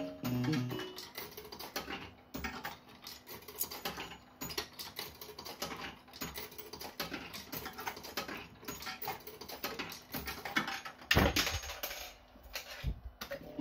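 Barcrest Alphabet fruit machine clicking and rattling in quick, irregular clicks, with two louder knocks near the end.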